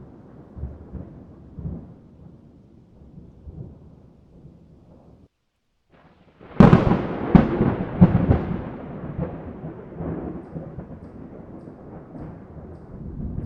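Thunder: a low rolling rumble, then after a brief dropout a sudden loud thunderclap about six and a half seconds in that rumbles away over the following seconds.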